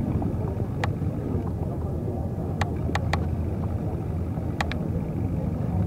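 Motorcycle engines running in a crowded car park: a steady low rumble, with about six sharp clicks scattered through it and voices in the background.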